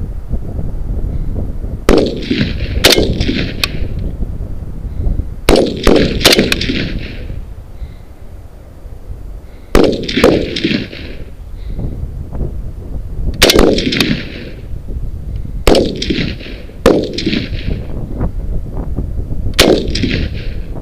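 SA80 A2 5.56 mm rifles firing single aimed shots from several firing points, about a dozen sharp cracks at uneven intervals, some in quick pairs, each with a short ringing echo, over a steady low rumble.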